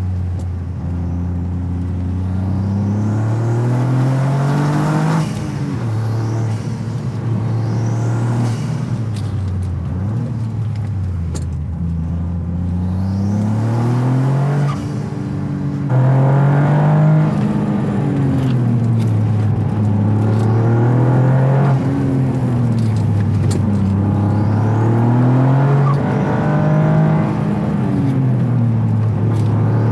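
Toyota GR Yaris's turbocharged 1.6-litre three-cylinder engine, with an aftermarket intake airbox, running under load as the car is driven. Its pitch rises and falls again and again as it accelerates and the revs drop. The microphone sits in the engine bay, so the intake sound is up close.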